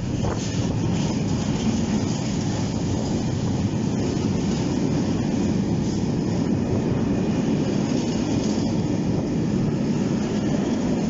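Freight train of empty stake wagons passing close by: a steady rumble of wheels on the rails, with a few faint clicks.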